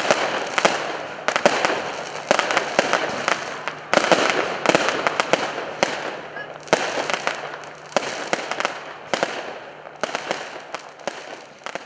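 Strings of firecrackers going off in rapid, irregular cracks and pops, slowly dying away towards the end.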